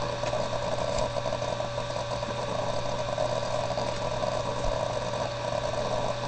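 A steady machine-like hum with a buzz, unchanging throughout.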